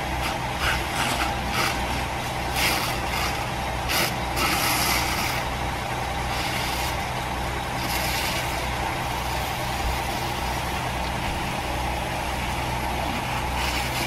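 Fire truck's diesel engine running steadily, driving the pump that feeds the charged hose lines. Short bursts of hiss and crackle sound over it in the first few seconds and again around eight seconds in.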